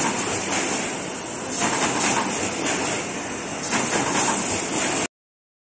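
Automatic corrugated-cardboard partition assembly machine running: a steady mechanical noise with a strong high hiss that swells about every two seconds as the machine cycles. The sound cuts off suddenly about five seconds in.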